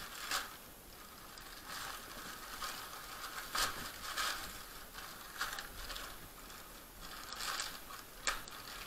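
Clear plastic packaging crinkling and rustling as it is handled and pulled open, in irregular bursts with a few sharper crackles.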